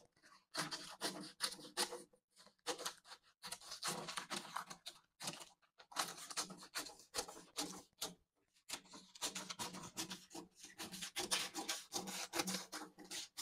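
Scissors cutting through a paper dress pattern: an irregular run of quiet snips and paper rustle, with a few short pauses.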